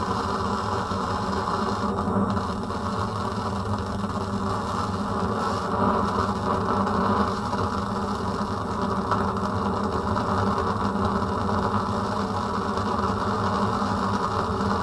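Bunsen burner with its air hole open, burning a roaring blue flame: a steady rushing roar with a buzzing hum that holds even throughout.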